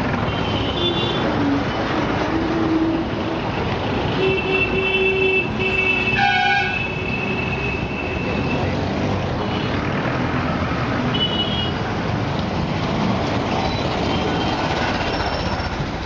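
Busy road traffic with vehicle horns beeping several times: short high beeps near the start, a longer beep about four to five seconds in, a deeper horn blast about six seconds in, and another short beep about eleven seconds in.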